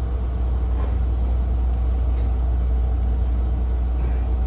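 Articulated city bus under way, heard from inside the passenger cabin: a steady low rumble of engine and road noise.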